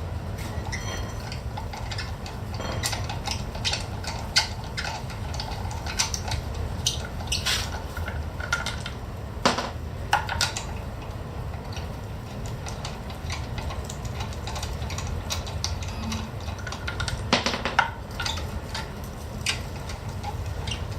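Socket wrench working a car wheel's lug nuts loose: scattered metal clinks and sharp clicks, over a steady low rumble.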